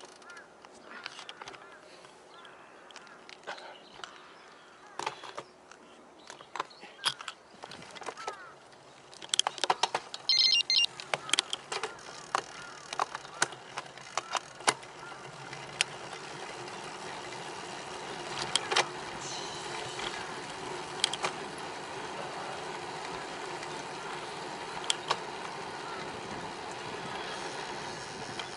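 Bicycle being ridden: sharp clicks and rattles from the bike through the first half, then a steady rush of wind and tyre noise that builds from about halfway and holds.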